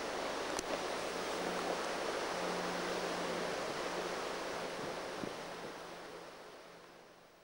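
Wind blowing across a camcorder microphone in open country: a steady, noisy rush with a faint low hum coming and going and a single click about half a second in. It fades away over the last two seconds.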